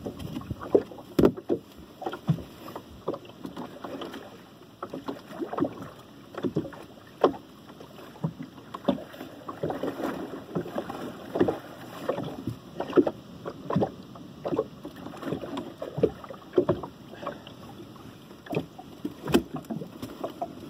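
Water splashing at the side of a fishing boat, with irregular knocks and thumps on the hull and deck, as a muskie is landed by hand and brought aboard.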